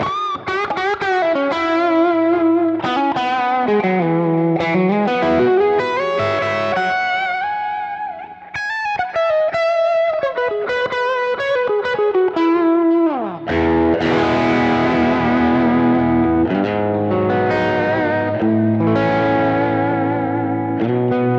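Electric guitar played through a Kemper Profiler on a profile of a Fender Princeton amp. It plays a single-note melody with bends and vibrato, then a long downward pitch glide just past halfway, then strummed chords with a little overdrive.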